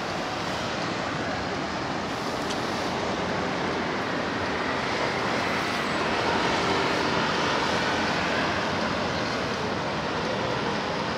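Steady city road traffic on a busy avenue, swelling about halfway through as a vehicle passes close by.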